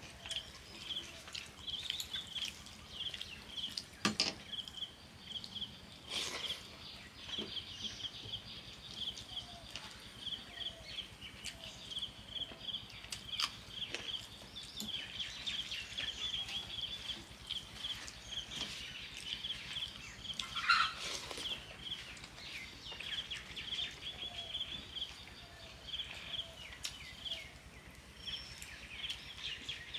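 Soft wet squelches and clicks as a hand mixes watery panta bhat (fermented rice) on a steel plate and the food is eaten, over a steady, rapid, high-pitched chirping that runs throughout. One louder brief sound comes about 21 seconds in.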